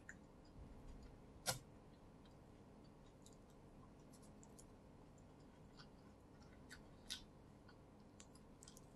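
Faint eating sounds close to a microphone: soft chewing and small wet mouth clicks, with a sharp tap about one and a half seconds in and another near seven seconds.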